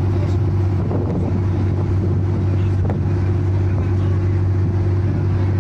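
A passenger launch's engine running steadily, a constant low hum.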